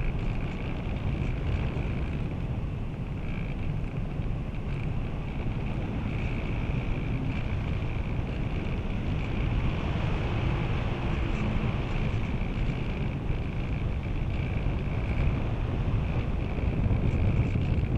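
Steady rush of wind over the airframe and onboard camera of a radio-controlled slope-soaring glider in flight, with a thin steady high hiss above it and a slight rise in loudness about halfway through.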